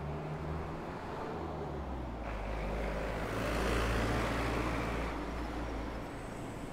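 City road traffic heard from a bicycle: a motor vehicle passes close by, its engine and tyre noise swelling to a peak in the middle and then fading, over a steady low rumble.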